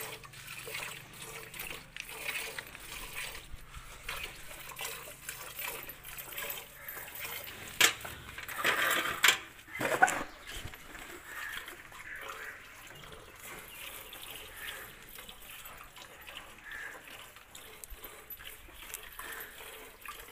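Milk squirting into a steel bucket in repeated short spurts as a cow is milked by hand, with a louder clatter of sharp sounds about eight to ten seconds in.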